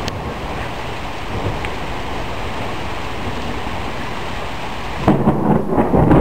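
Steady heavy rain hissing, then a rumble of thunder rolls in about five seconds in and grows louder.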